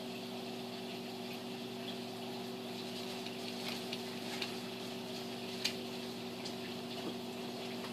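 Steady hum and water hiss of a reef aquarium's circulation pumps and filtration, with a few faint sharp clicks scattered through the middle, the loudest about five and a half seconds in.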